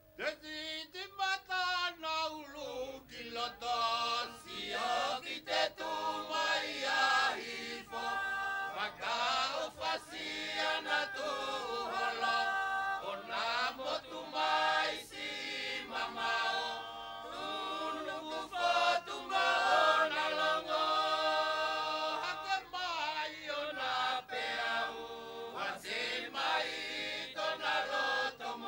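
Seated Tongan chorus singing a me'e dance song unaccompanied, many voices together in harmony, starting suddenly.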